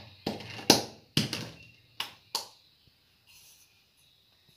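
Stainless steel tumbler knocked against the rim of a steel mixing bowl to tap out the last of the powder: about five sharp metallic taps with a short ring, in the first two and a half seconds.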